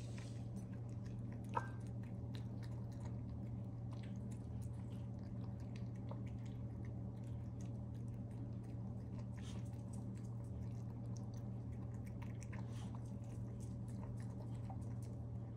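A Maltese–Shih Tzu puppy eating kibble from a ceramic bowl, steady wet chewing and crunching with many small clicks. There is a single sharp clink about one and a half seconds in, and a steady low hum underneath.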